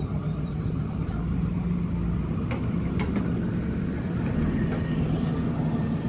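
JCB backhoe loader's diesel engine running steadily, with two faint clicks about halfway through.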